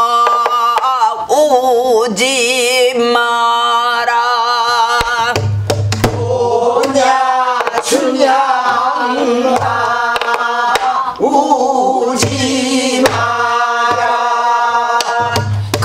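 A woman singing pansori in long drawn-out phrases with a wide, shaking vibrato, accompanying herself on a buk barrel drum whose low strokes fall every few seconds.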